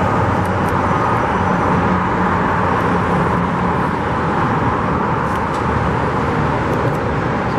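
Steady roar of road traffic, with a low engine hum underneath.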